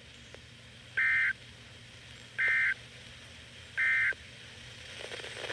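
Emergency Alert System SAME end-of-message code: three short, identical bursts of warbling two-tone digital data, about a second and a half apart. They mark the end of the broadcast severe thunderstorm warning.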